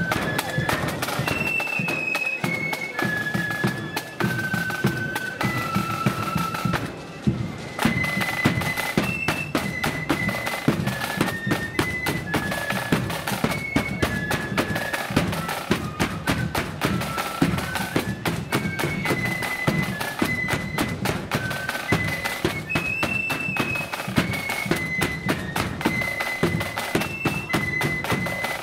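A loyalist marching flute band playing a tune: the flutes play one high melody line together over a steadily beating bass drum and side drums. The melody breaks off briefly about a quarter of the way through.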